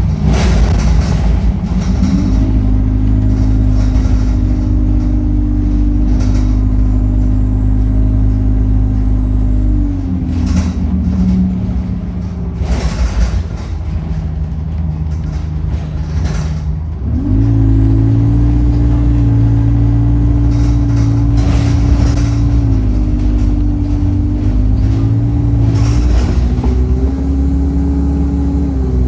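Bus diesel engine pulling away and accelerating, with a faint high turbo whistle that rises over the engine note. The Allison automatic gearbox shifts with small steps in pitch. The engine eases off about ten seconds in and picks up again about seventeen seconds in, with scattered knocks and rattles throughout.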